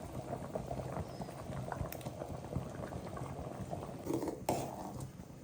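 Chicken curry (kuzhambu) bubbling at a boil in a pot, a steady dense crackle of small pops, with a single knock or clink about four and a half seconds in.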